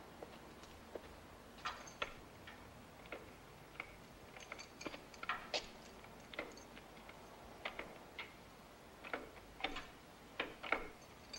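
Keys working the lock of a wrought-iron gate: sparse, irregular light metallic clicks and clinks over a quiet background.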